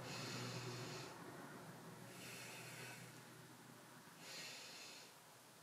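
A woman breathing slowly and audibly in a paced yoga breath: three faint breaths, each about a second long, about two seconds apart, inhaling as the leg straightens and exhaling as the knee comes back in.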